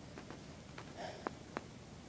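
A few faint, short clicks and ticks from small wires being handled and twisted together by hand.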